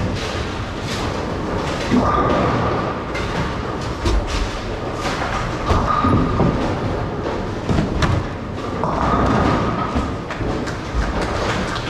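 Bowling-centre noise: repeated thuds and knocks of bowling balls and pins on the lanes, with a tone that comes and goes several times.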